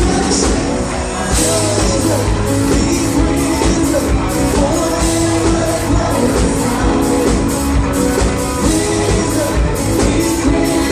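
Worship music with singing over a band, with a steady drum beat.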